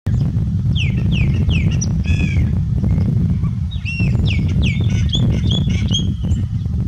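Chopi blackbird (graúna) singing: three clear whistled notes that drop in pitch, a buzzier note about two seconds in, then a faster string of whistles from about four seconds in. A steady low rumble runs underneath.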